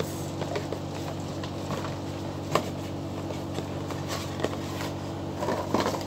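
Cardboard chocolate box being handled and opened: scattered taps and scrapes, the sharpest about two and a half seconds in and a cluster near the end, over a steady low hum.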